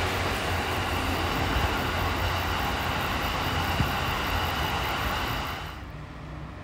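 E26 series Cassiopeia sleeper train rolling past on the rails, a steady run of wheel and car noise. It drops off sharply a little before the end as the train clears.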